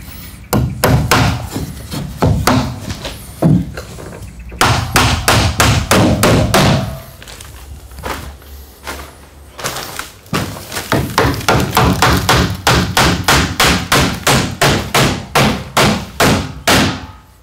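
Hammer driving nails into wooden floorboards: scattered blows at first, then a steady run of about three strikes a second from about ten seconds in.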